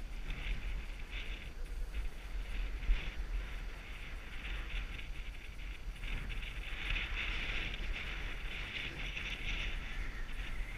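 Skis sliding and scraping over groomed snow, with wind rumbling on the microphone. The scraping hiss grows louder a little past halfway.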